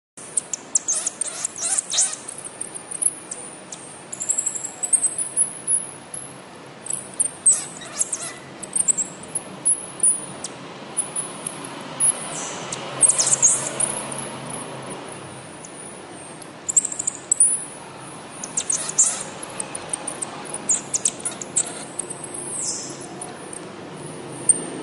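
Pygmy marmoset giving rapid, very high-pitched chirps and squeaks as it eats, with a couple of longer falling whistles.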